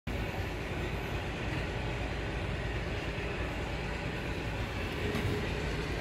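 Steady low rumbling background noise with a faint hum.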